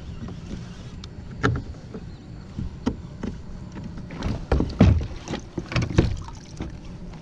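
Hollow knocks and clunks on a plastic pedal-drive fishing kayak as gear in the cockpit is handled, scattered at first and coming several in quick succession about four to six seconds in.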